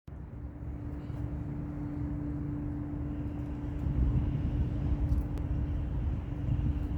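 A steady low rumble under a constant droning hum, growing a little louder about four seconds in.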